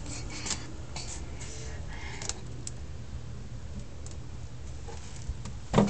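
Close handling noise: light rustles and small clicks of hands working with a cable and electrical tape, over a low steady hum, with one louder thump near the end.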